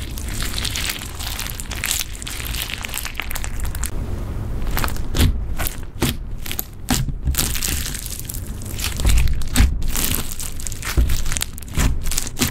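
Clear slime full of foam beads being squeezed and worked by hand, the beads crackling and crunching. About five seconds in, the steady crackle gives way to separate pokes and presses, each a short crunch with a soft low thud.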